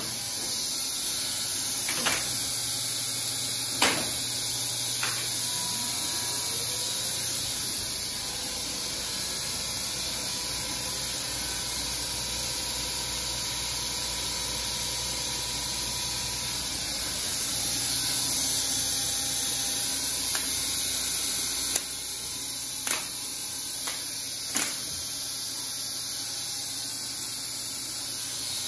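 Elevator relay controller in a machine room: a handful of sharp relay clicks, a few near the start and a few more about three quarters through, over a steady hiss and low hum. A brief rising tone comes about five seconds in.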